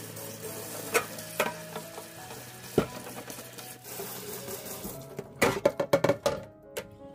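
Tap water running onto a perforated metal shelf in a stainless steel sink while a hand rubs it, with a few light knocks. The water stops about five seconds in, and the shelf clatters against the sink several times in quick succession.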